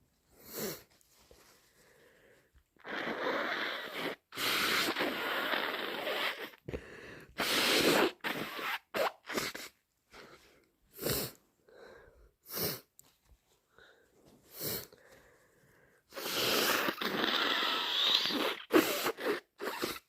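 A person with a heavy cold blowing a congested nose hard in about four long, noisy blows, the longest near the end, with short sharp sneezes in between.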